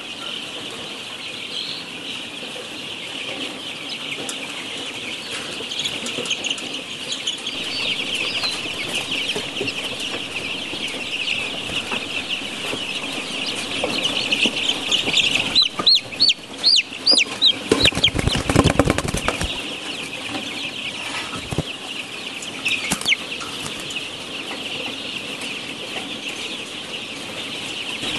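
A dense, steady chorus of many young caged laying hens (pullets) peeping and chirping. A little past the middle, a rapid run of loud, sharp calls from a bird close by stands out over the chorus for a few seconds.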